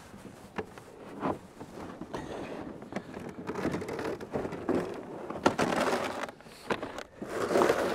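Plastic ice-fishing sleds being shifted and handled on snowy ice: rough scraping and rustling of the plastic with scattered knocks of gear, one sharper knock about five and a half seconds in.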